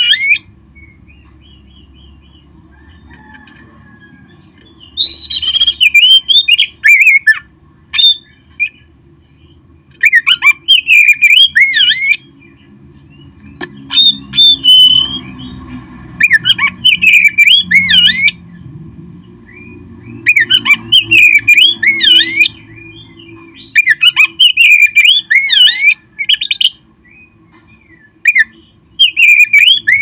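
Oriental magpie-robin (kacer) singing loud bouts of rapid, sweeping whistled notes, each a second or two long and repeated every few seconds, over a faint low hum.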